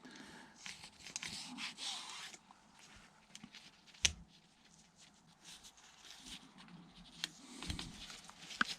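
Faint handling noise from chainsaw parts being worked on: light rustling and small ticks, with one sharp click about four seconds in.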